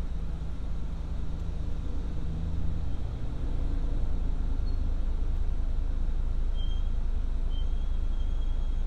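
Low, steady rumble of idling car engines and slow road traffic heard from inside a car cabin, with faint thin high squeaks near the end.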